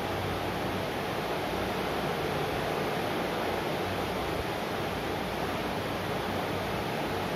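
Steady, even background noise with a faint low hum, unchanging throughout.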